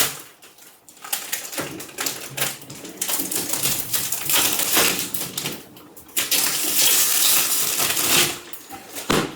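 Plastic packaging being handled and pulled, crinkling and squeaking in irregular rustling bursts. There is a brief quiet spell near the start.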